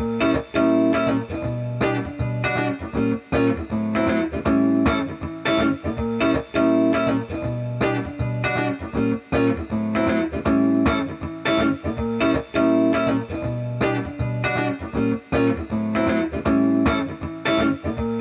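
Background music: a plucked-string tune with a steady, even rhythm.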